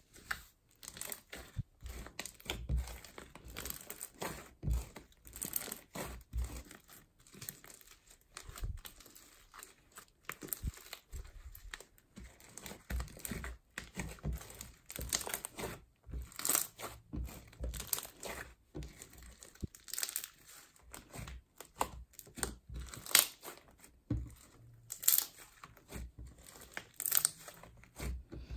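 Thick slime being kneaded, squeezed and pulled apart by hand, giving an irregular run of sticky crackles, pops and tearing sounds as the slime stretches and air pockets burst.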